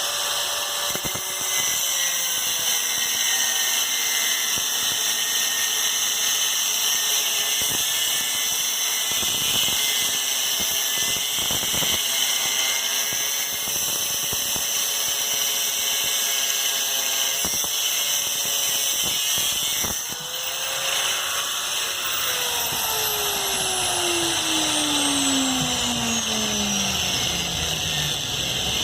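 A power tool's motor running steadily with a high whine, its pitch dipping and recovering as it is loaded. From about three quarters of the way through, a lower tone slides steadily down in pitch while the whine goes on.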